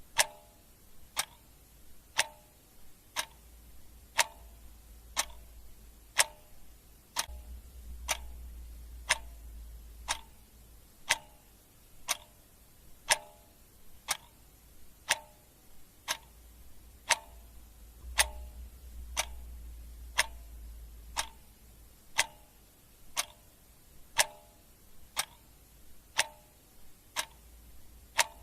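Clock ticking steadily, about two ticks a second, with louder and softer ticks alternating in a tick-tock pattern.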